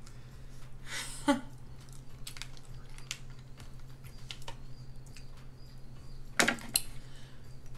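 Eating king crab: scattered sharp clicks and cracks of shell being broken and chewed, loudest about a second in and again near the end, over a steady low hum.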